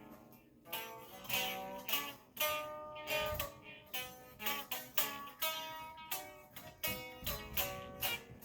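Guitar music: plucked and strummed chords, each attack ringing out and fading before the next, about two or three a second.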